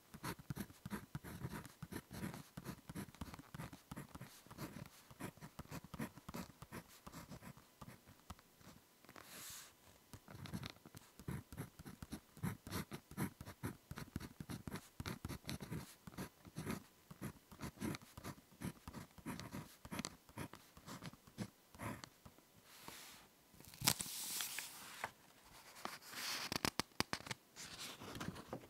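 Ballpoint pen writing on notebook paper: a close, steady run of short scratching strokes. Near the end, paper rustles as a notebook page is turned.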